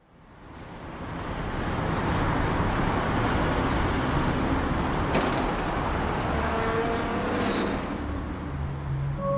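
Night city-street traffic noise fading in over the first two seconds, then a steady rush of passing vehicles. There is a short sharp clatter about five seconds in and a few brief tones around seven seconds.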